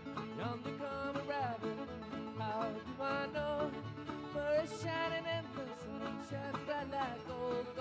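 Background bluegrass music with a steady beat and a sliding melody line.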